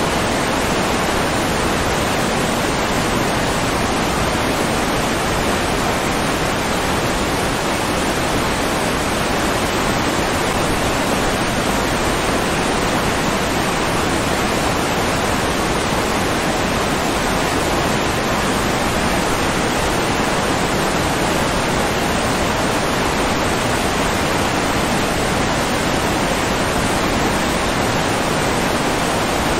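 Steady rushing water, an even, unbroken hiss that does not change.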